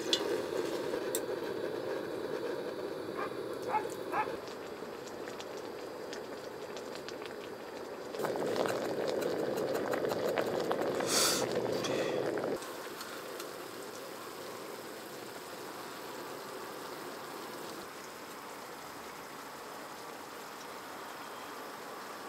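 Water and sliced pork bubbling and sizzling in a hot round camping griddle pan, a steady hiss. A louder stretch of sizzling starts about eight seconds in and stops abruptly some four seconds later, and there are a few light clicks around three to four seconds.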